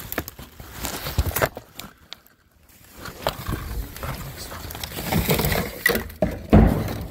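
Rummaging through a pile of stored belongings: plastic bags rustling and items knocking and shifting, with a brief lull about two seconds in and one loud thump near the end.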